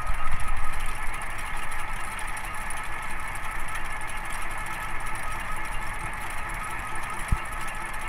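Mini combine harvester running steadily, its engine and header mechanism turning, with a single sharp knock near the end.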